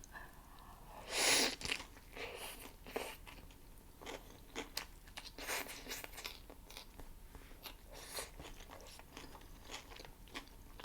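Close-up eating of a homemade plant-based Impossible burger: a loud crunchy bite about a second in, then chewing with many small clicks and crackles.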